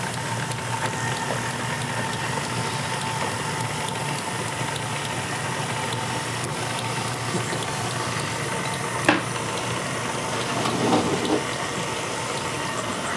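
Tilt-head stand mixer running at a steady speed, beating cookie dough until it holds together. A sharp click about nine seconds in and a brief rustle a little later.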